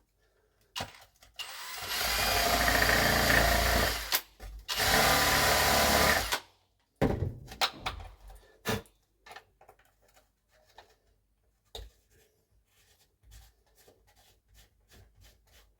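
Drill with a hole saw running in reverse in a fibreglass hatch hole, cleaning out the frayed fibres: two runs of about two seconds each, followed by small clicks and knocks of handling.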